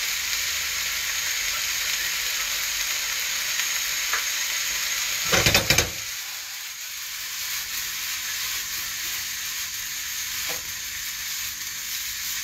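Diced vegetables sizzling steadily in oil in a wide frying pan over a gas flame. A short burst of loud clattering knocks comes about halfway through, and after it the sizzle is a little quieter.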